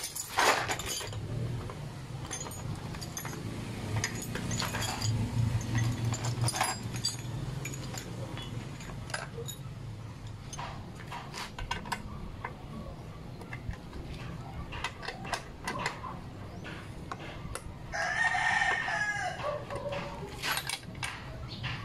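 A rooster crows once, about a second and a half long, near the end. Scattered clicks and knocks from hands working at a motorcycle's rear plate run throughout.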